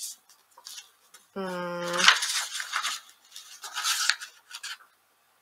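Pages of a hardback book being opened and leafed through, a dry papery rustle in several irregular bursts. A short hummed 'hmm' comes about a second and a half in.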